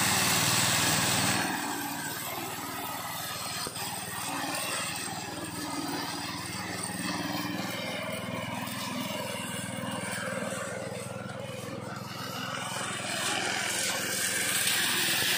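Small engine of a modified push lawn mower running steadily, louder for about the first second and a half and again near the end.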